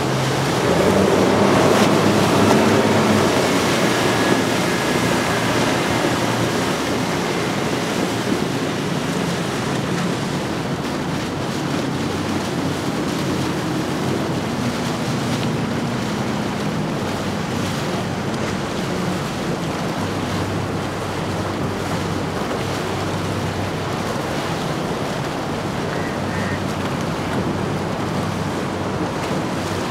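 Outboard-powered center console boats running past, a low engine drone under the rushing wash of water and wind noise on the microphone. It is loudest in the first few seconds.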